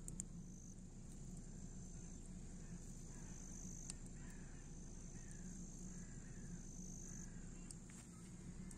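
Insects trilling in a high, steady tone that holds for several seconds at a time, with faint short falling chirps from a bird about once a second and a low steady hum beneath.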